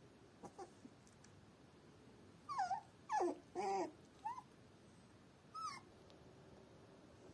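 A young puppy whimpering: four short, high whines in quick succession, most sliding down in pitch, then one more after a pause.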